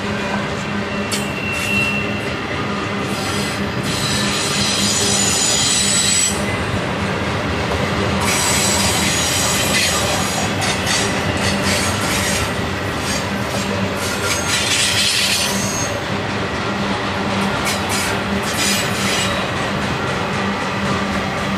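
Intermodal freight train of truck trailers on flatcars rolling past close by, steady and loud. The wheels squeal on the curve in stretches three times, with sharp clicks of wheels passing over the rail.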